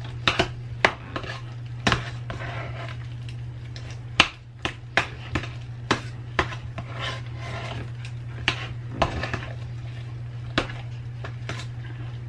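Metal utensil clinking and scraping against a stainless steel saucepan while mashing potatoes with milk and butter, in irregular sharp clinks with soft squishing between them, one louder knock about four seconds in. A steady low hum runs underneath.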